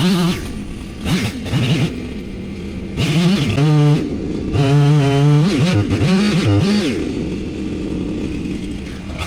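An engine revving up and down in repeated surges, its pitch rising and falling several times, then settling lower for the last couple of seconds.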